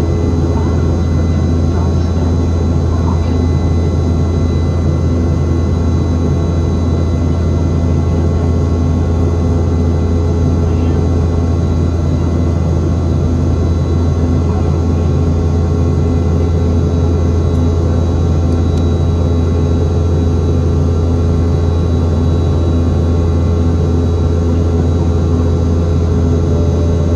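Cabin noise of a Boeing 717-200 in flight, heard from a seat beside its tail-mounted Rolls-Royce BR715 turbofan engines: a loud, even drone with a strong low hum and several steady whining tones over it.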